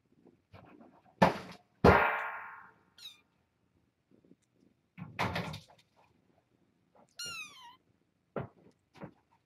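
Two loud knocks a little over a second in, the second ringing on briefly, and a short clatter about five seconds in. Later a young kitten gives one high mew that falls in pitch, followed by a single soft tap.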